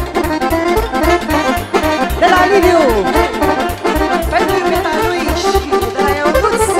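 Live Romanian folk dance music, a fast steady bass beat under an accordion lead, with sliding melodic runs about two and four seconds in.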